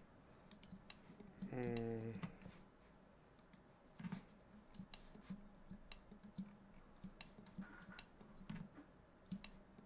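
Irregular clicks of a computer mouse and keyboard being worked, a dozen or so spread over the stretch. About a second and a half in, a brief hummed voice sound.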